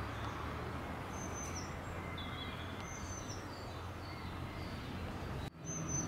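Small birds calling with short high chirps every second or so, over a steady low background rumble. The sound cuts out for an instant near the end.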